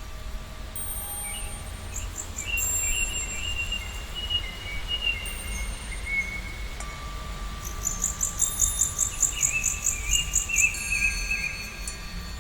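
Birds calling with warbling, sliding notes, and a fast high-pitched pulsing trill from about eight seconds in, over a steady low rumble.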